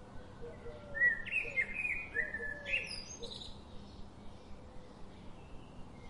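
Birds chirping: a quick run of bright chirps starts about a second in and lasts a couple of seconds, over softer repeated short calls and a faint steady hiss.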